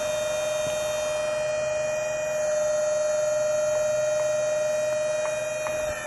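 Wood-Mizer LT70 portable sawmill running, a steady high-pitched whine with overtones over a faint low hum.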